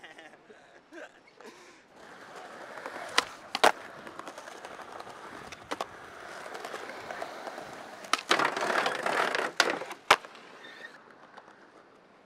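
Skateboard wheels rolling over concrete pavement, broken by sharp clacks of the board popping and landing. A louder, rougher stretch comes about eight seconds in and ends in two sharp impacts, then the rolling fades.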